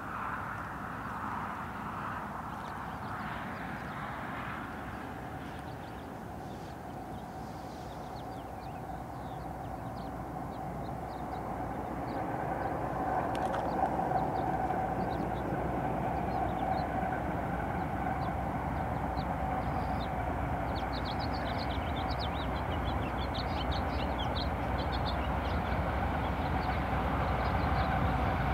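BNSF double-stack intermodal freight train led by GE diesel locomotives approaching from far off: a low rumble with a steady hum that grows gradually louder as it nears.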